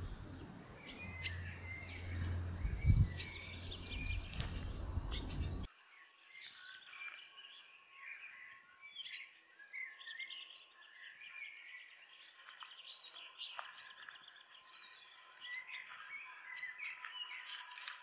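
Welcome swallows giving repeated short, high twittering chirps, scolding calls of disapproval at someone coming close to their nest.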